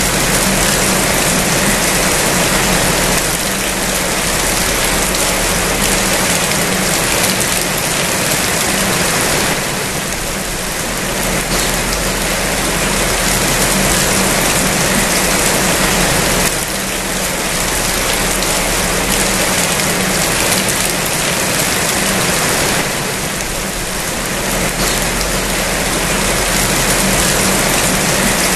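Heavy rain falling steadily, an even hiss that eases slightly for a moment every six or seven seconds.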